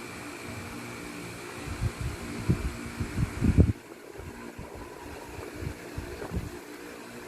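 Low handling knocks and rubs, loudest in a cluster about two to four seconds in, as a Samsung Galaxy S6 Edge is handled while its motherboard is worked loose, over a steady fan hum that cuts off about halfway through.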